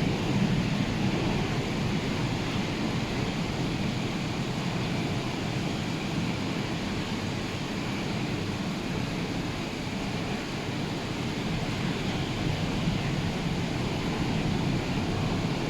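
Ocean surf breaking in a continuous wash, with wind buffeting the microphone.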